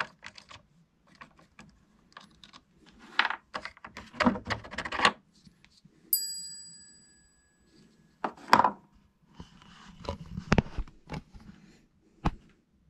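Clicks and rattles of the planer motor's fan and plastic fan shroud being pulled off and handled. About six seconds in comes one bright metallic ding, a small metal part striking and ringing out for over a second, followed by a few knocks as parts are set down on the bench.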